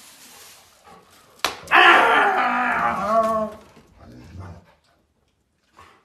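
A sharp knock, then a dog giving a loud, drawn-out bark-like call for nearly two seconds, its pitch bending up and down, followed by a few fainter low sounds.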